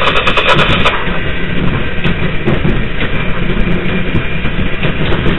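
New York City subway train running on elevated track, heard from inside the cab: a steady, loud rumble of wheels on the rails with a low motor hum.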